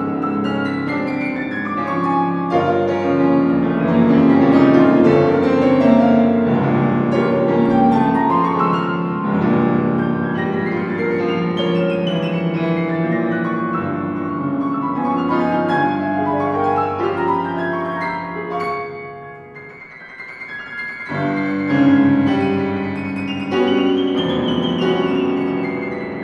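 Solo piano playing a dense passage of fast running figures and full chords, with rising runs. It drops to a soft stretch about three quarters of the way through, then comes back in with a loud chord.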